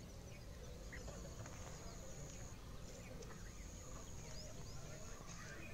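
Faint outdoor ambience: a steady high-pitched insect buzz that breaks off and resumes, with scattered short bird chirps and a few soft clicks.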